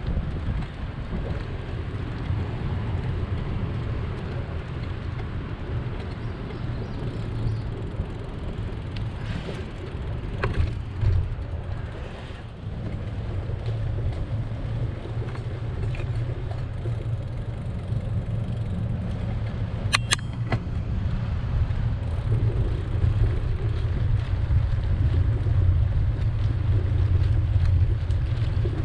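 Steady low rumble of wind on the microphone and road and traffic noise while riding a bicycle, with a few light clicks about ten seconds in and a brief high squeal about twenty seconds in.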